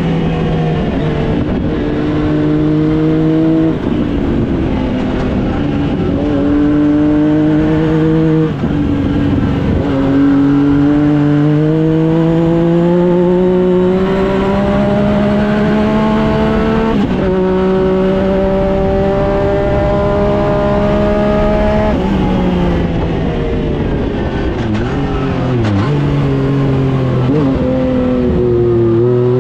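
Yamaha Viper snowmobile's 1050 cc three-cylinder engine in a Yamaha YXZ1000R side-by-side, heard from the cab under hard driving. The engine note climbs steadily as it accelerates, with several sudden drops and one jump in pitch as it shifts and comes off and back on the throttle.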